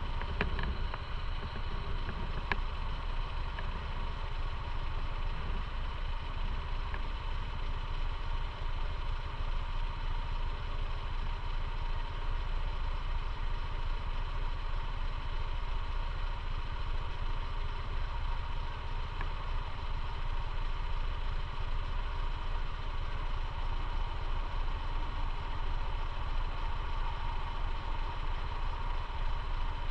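Motorcycle engine running steadily at an even pitch, with a couple of light clicks in the first few seconds.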